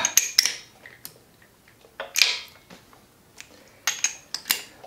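Sparse sharp clicks and light metallic clinks from hand work with tools and parts on a motorcycle engine, with a short rustle about two seconds in.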